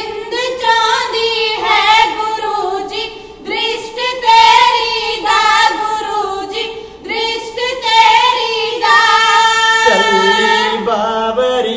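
Three women singing Punjabi kavishri together, unaccompanied, in long held and wavering notes. About ten seconds in, a man's lower voice comes in under them.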